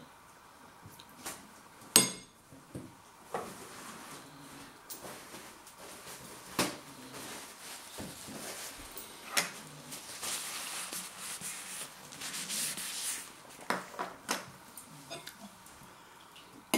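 Eating at a table: scattered sharp clinks of a metal spoon against a bowl, the loudest about two seconds in, and a soft rustle of a paper towel wiped over the mouth about ten to thirteen seconds in.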